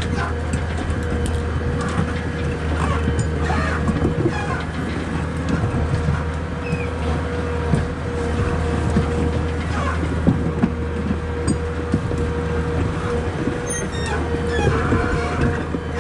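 Heavy forestry machine's diesel engine running steadily, with a constant hydraulic whine above the low engine hum and scattered knocks and short squeaks of working machinery.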